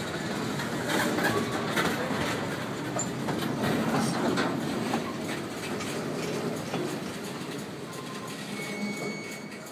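Empty freight cars rolling slowly along the track, their wheels clicking and clattering over the rails. The sound fades in the last few seconds as the cars move off.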